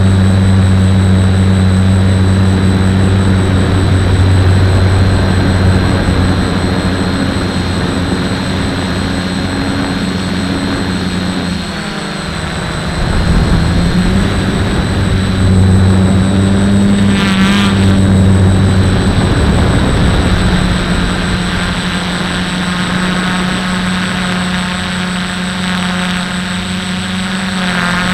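Multirotor drone's electric motors and propellers in flight, a loud steady hum heard close up through the camera mounted on the aircraft. Its pitch shifts as the throttle changes, dipping about twelve seconds in and wavering up and down near the end, with a faint high whine underneath.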